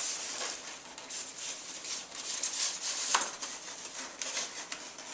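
Polystyrene foam shipping case being pulled apart by hand: foam rubbing and scraping against foam, with plastic wrap rustling and a sharp click about three seconds in.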